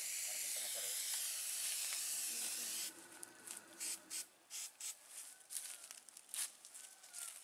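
A steady hiss lasting about three seconds that cuts off abruptly, followed by short scattered hisses and rustles.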